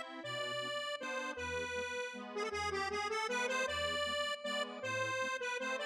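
Background instrumental music: held, pitched melody notes over a bass line that changes note roughly every half second, in a bouncy rhythm.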